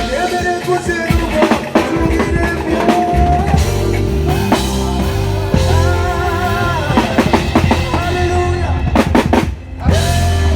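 A band playing, led by a drum kit with kick, snare and rim hits over sustained pitched notes. A deep bass line comes in about three seconds in, and the music dips briefly near the end.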